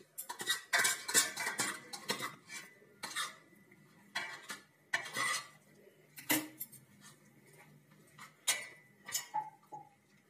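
Fingers scraping and tapping on a stainless steel plate while strips of khandvi are rolled off it: irregular metallic clinks and scrapes, busiest in the first few seconds.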